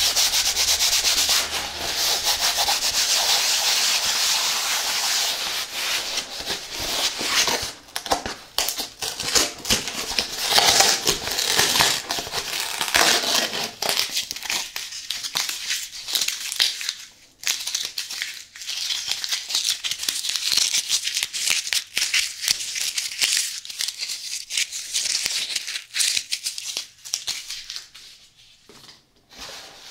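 Fingers rubbing and scratching across the surface of a corrugated cardboard mailer box, close to the microphone. It is a dense papery scratching, near-continuous for the first half, then breaking into separate strokes with short pauses.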